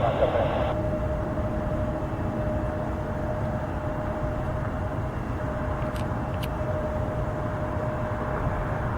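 Steady jet engine noise from airliners at the airport, a low rumble under a constant whine. A short burst of radio static at the start, and two faint clicks about six seconds in.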